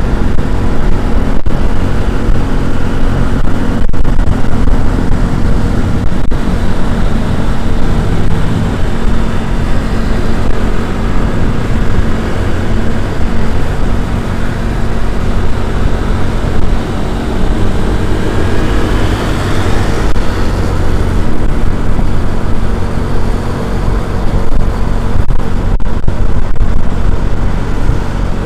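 A motor vehicle running, with a steady low engine hum under heavy road and wind noise. A rising whine comes in near the middle.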